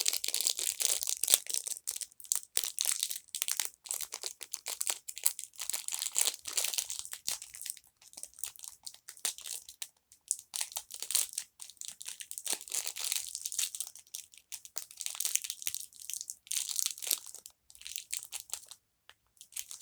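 Thin plastic packaging crinkling and rustling as it is handled and pulled at to get a fidget toy out, an irregular crackle that comes in spells with short pauses.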